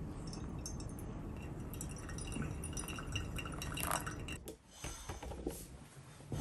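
Thin stream of hot water poured from a gooseneck kettle onto coffee grounds in a paper-filtered pour-over dripper, trickling and dripping. About four and a half seconds in the pour gives way to a few separate drips and light clinks.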